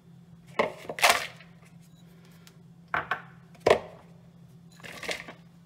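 Chopped chocolate tipped from small ceramic bowls into a plastic mixing bowl: a handful of sharp knocks and clatters as the bowls touch and the chocolate pieces tumble in, in separate bursts a second or two apart.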